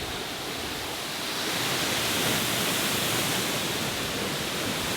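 Waterfall and river water rushing: a steady, even rush of noise that grows a little louder about a second and a half in.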